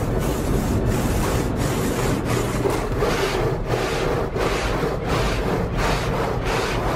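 Automatic car wash working over the car, heard from inside the cabin: water spraying and brushes scrubbing the body in a regular swishing, about two swishes a second.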